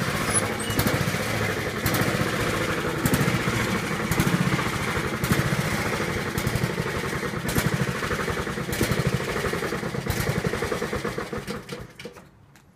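Honda HRT216 lawn mower's small single-cylinder engine running steadily, with a sharp click about once a second. It is shut off and winds down to quiet about 12 seconds in.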